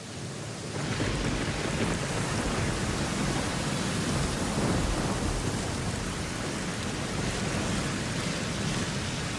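A thunderstorm: steady rain with a low rumble of thunder, swelling in about a second in and then holding steady.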